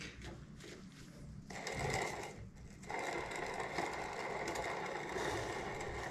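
Inline skate wheels spun by hand on their bearings: a steady mechanical whir with a high tone. It comes in about a second and a half in, breaks off briefly, then resumes and keeps going. Faint handling clicks come before it.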